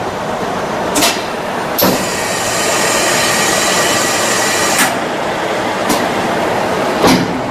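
Brazing equipment working on automotive air-conditioning pipes: a steady hiss with a louder stretch lasting about three seconds, broken by five sharp clicks.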